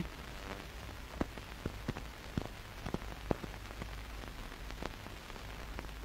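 Faint steady hiss with a low hum and a handful of soft scattered clicks: the background noise and crackle of an old film soundtrack.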